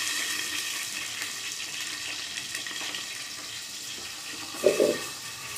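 Cooking oil sizzling steadily as stuffed green chillies fry in a lidded frying pan. A short, louder sound comes about four and a half seconds in.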